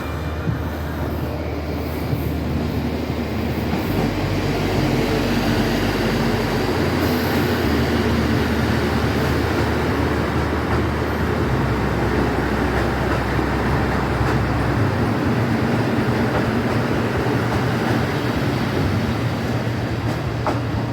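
KiHa 85 series diesel express train running on the rails: a steady rumble of wheels and running gear that grows a little louder a few seconds in, then holds steady.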